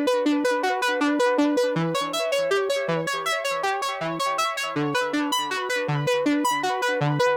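Background music: a synthesizer keyboard plays a quick, even run of notes, about five a second, over a lower bass line.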